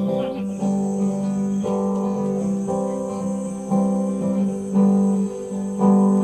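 Guitar strumming sustained chords, a new chord struck about once a second.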